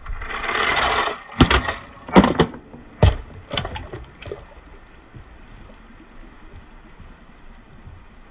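A short rushing hiss, then a string of sharp knocks and clicks, loudest in the first two seconds and growing sparser, over a faint steady background noise.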